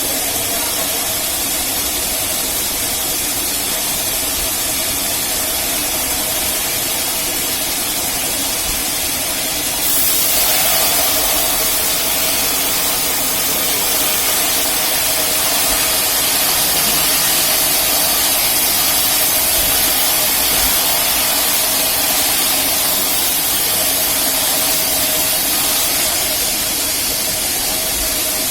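Rail-mounted band sawmill running and cutting teak: a steady machine drone with a dense hiss, getting louder and brighter about ten seconds in.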